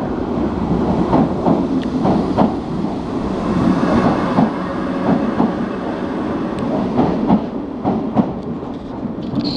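Irish Rail 8100 class DART electric multiple unit moving away from the station and passing close by. A steady running rumble carries a string of clicks and knocks as the wheels cross rail joints, easing slightly near the end.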